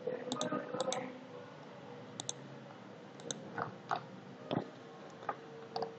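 Computer mouse clicking: a scatter of quiet, sharp clicks, several in quick pairs, spread over the few seconds with softer taps in between.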